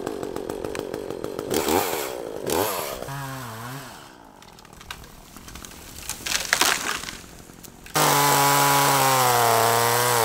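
Echo CS-400 two-stroke chainsaw running and revving. A falling tree cracks about six and a half seconds in. From about eight seconds the saw runs loud at full throttle cutting through a log, its pitch sagging under load and then rising again.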